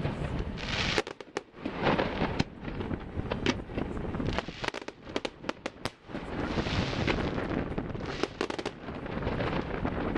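Fireworks display: many irregular sharp bangs and crackling bursts, coming thickest about halfway through.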